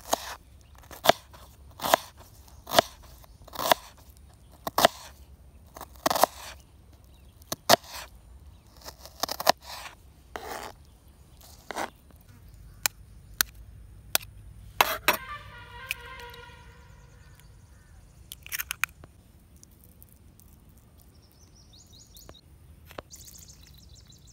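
Knife chopping a red onion on a plastic cutting board: sharp knocks about once or twice a second, thinning out after about fifteen seconds.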